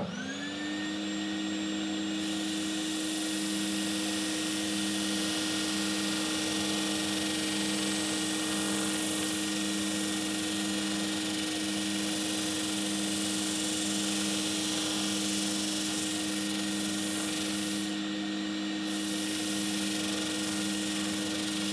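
Homemade wooden drum sander switched on and spinning up to speed, then running with a steady hum while a board faced with coarse sandpaper is pressed against the spinning drum, grinding the out-of-true drum down to round.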